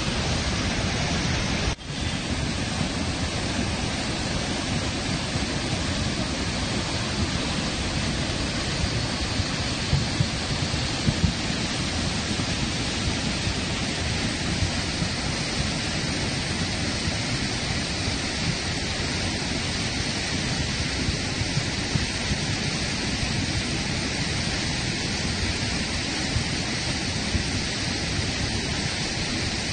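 The Beas river in flood, swollen by a night of heavy rain, its muddy water rushing over boulders in a loud, steady torrent. There is a brief dropout about two seconds in.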